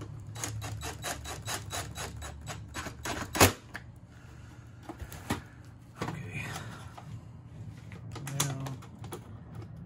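DeWalt cordless drill driving screws on a wiring terminal block: a rapid, even run of clicks for about three seconds, ending in one loud click. Then softer scattered clicks as wires and an alligator clip are handled, over a steady low hum.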